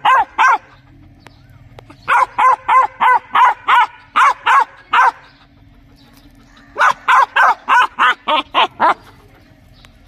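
A young tan dog barking in quick runs of short, high barks, about three or four a second: a few at the start, a long run from about two to five seconds in, and another run near the end.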